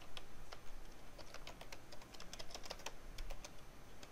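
Computer keyboard keys being typed as a password is entered: a quick, uneven run of key clicks.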